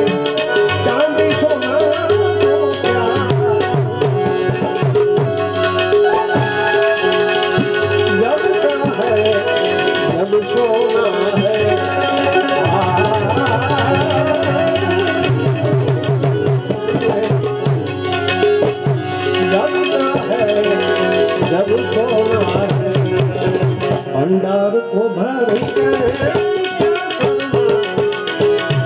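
Harmonium playing a devotional folk melody over a fast hand-drum rhythm, with a brief break in the music about 24 seconds in.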